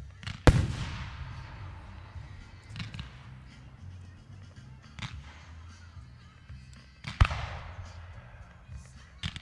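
Aerial fireworks shells bursting. Two loud booms, about half a second in and about seven seconds in, each rolls away in a long echo, with smaller bangs in between.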